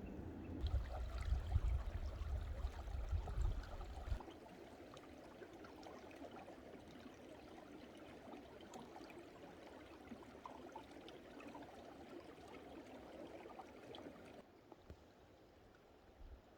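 Mountain stream flowing, a steady rushing and trickling of water. For the first few seconds wind buffets the microphone in loud, low gusts; the sound changes abruptly about half a second in and again near the end.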